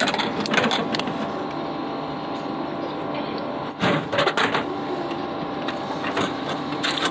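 Food vending machine's delivery mechanism running with a steady whir while it moves the chosen item to the pickup tray, with clusters of clunks and knocks near the start and again about four seconds in.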